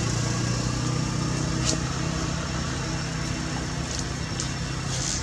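A motor engine running steadily at idle, a low even hum, with a few faint high ticks over it.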